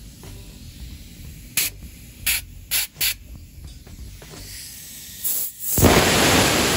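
Short bursts of air hissing at a pocket bike's small tyre, four in quick succession and another a little later. Near the end comes a loud rubbing rumble from a hand handling the phone close to its microphone.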